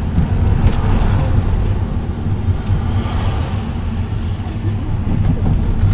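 Steady low rumble of engine and road noise heard inside the cabin of a moving road vehicle.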